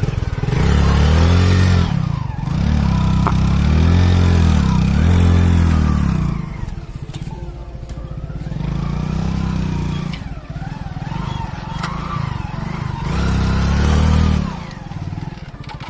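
Motorcycle engine revving in repeated surges, its pitch rising and falling, with quieter stretches between the bursts of throttle.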